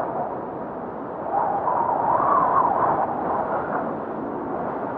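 Snowstorm ambience: a steady, dull rush of wintry wind that swells for a couple of seconds in the middle and then eases off.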